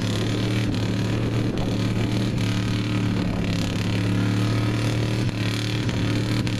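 Lifted street-stock pickup truck's engine running at a steady, constant speed as the truck crawls slowly through the mud pit, with a brief dip about five seconds in.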